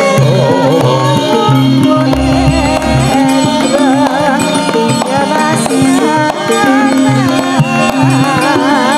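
Javanese gamelan music playing, with steady metallophone tones, kendang drum strokes and a wavering high melodic line over them.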